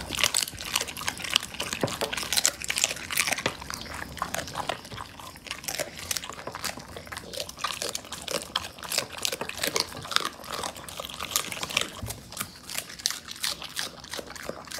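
A dog chewing raw meat and bone close up: a continuous run of wet crunches and bites, several a second.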